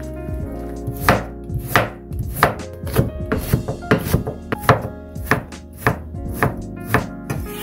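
Kitchen knife chopping carrot on a wooden cutting board: a steady run of sharp knocks, about three a second, starting about a second in.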